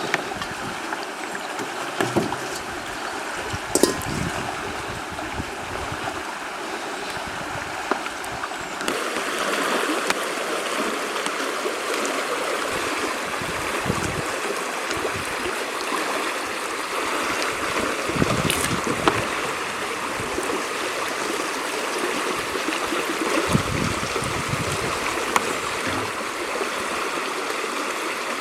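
River water running steadily, its rush growing louder and fuller about nine seconds in, with a few light knocks.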